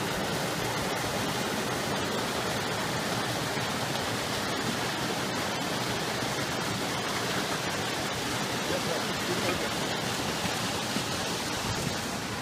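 Steady rushing of a mountain stream pouring over small rocky cascades.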